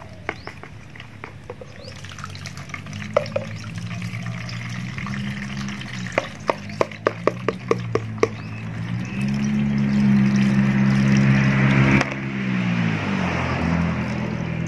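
Cloudy fermented rice water being strained and poured through a plastic strainer between plastic bowls, with a splashing pour in the second half. Under it runs a low steady machine hum that grows louder about halfway through and shifts near the end. Just before the pour there is a quick run of small clicks.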